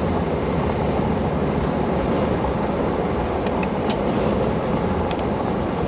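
Steady rushing noise of wind and a moving vehicle's road rumble, with a few faint ticks.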